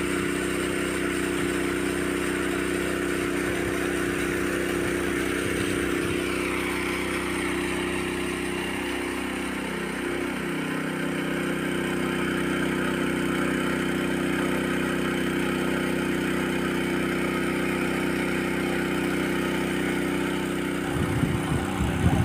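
Honda WB30XD water pump's single-cylinder four-stroke engine running steadily under load, with water gushing from the discharge outlet. A few irregular louder low thumps come in near the end.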